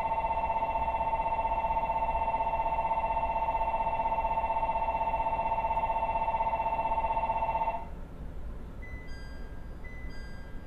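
Electric departure bell ringing steadily before an E127 train pulls out, cutting off abruptly about eight seconds in. Two brief high chime tones follow about a second apart.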